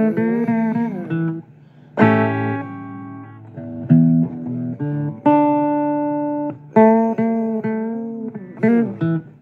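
Blues guitar playing a solo break: single plucked notes and short phrases, several bent up and down in pitch, with a few long notes left ringing.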